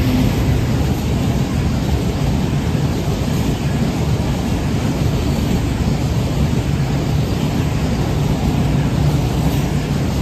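Freight wagons of a long container train rolling past close by: a steady low rumble of wheels running on the rails, holding even throughout.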